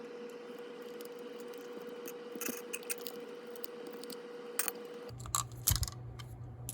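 Faint scattered clicks and light scrapes of small screws and plastic parts being handled as the bottom frame of a toy HO scale locomotive is unscrewed and taken apart.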